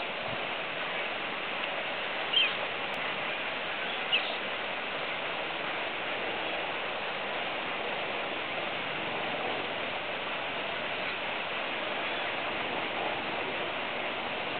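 Steady outdoor background hiss, with two short high bird chirps about two and four seconds in.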